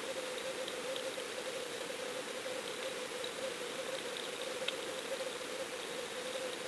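Underwater camera recording from inside its waterproof housing: a steady hiss with a constant low hum, and a few faint scattered ticks.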